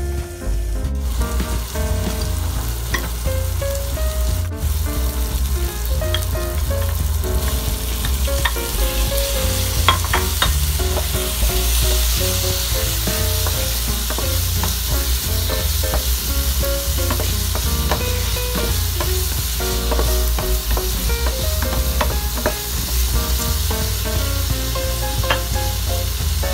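Food sizzling and frying in a pan while it is stirred, with a few sharp clicks of the utensil against the pan about ten seconds in. Background music plays underneath.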